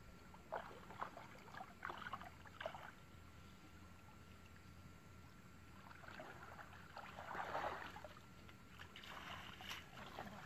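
Faint splashing and sloshing of shallow water stirred by people wading and handling a cast net. There are a few short splashes in the first three seconds, then a longer swish of water about seven seconds in.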